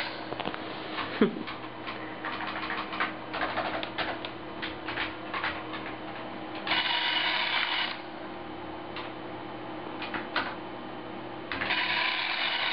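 Drive motors of a small homemade wheeled robot whirring in bursts, one of about a second in the middle and another starting near the end, with scattered clicks and rattles in between as it moves and turns on a wooden floor.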